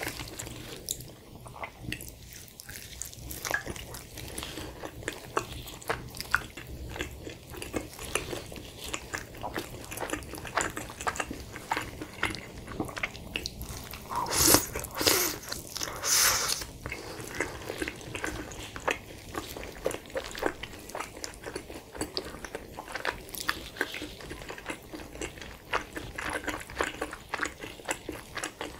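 Close-miked chewing of a steak-and-cheese quesadilla dipped in salsa: a steady run of small mouth clicks and smacks, with two louder bites about halfway through.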